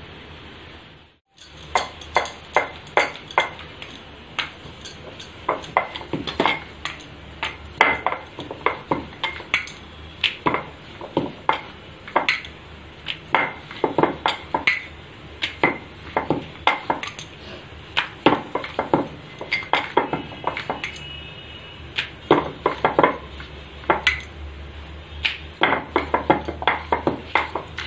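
Wooden rolling pin rolling out thepla dough on a black rolling board: quick, uneven clacks and knocks, several a second, as the pin and board knock together.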